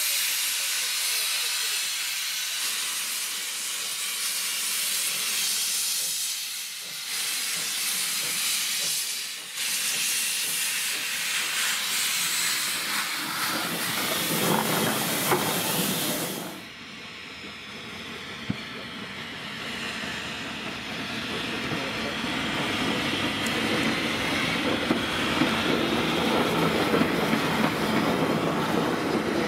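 NMBS-SNCB type 29 2-8-0 steam locomotive passing with its cylinder drain cocks open: a loud, steady hiss of steam that cuts off suddenly a little over halfway through. After that, the lower rumble of the locomotive and tender rolling over the rails, with a few sharp clicks, growing louder toward the end.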